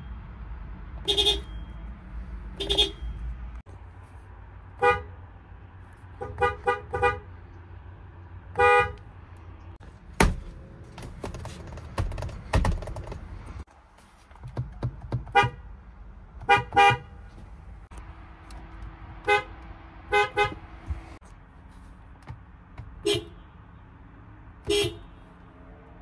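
Car horns of several different Toyota vehicles sounding in turn, each horn pad pressed for short toots: single beeps and quick double and triple beeps. Each vehicle's horn has its own pitch. A few sharp clicks fall in the middle.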